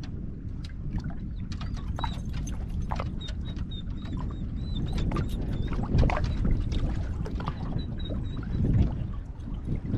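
Strong wind rumbling on the microphone, with small waves slapping and knocking against the boat's hull several times.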